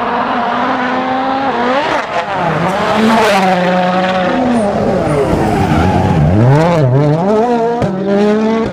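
Rally car engines at full throttle, the pitch climbing and dropping again and again through gear changes.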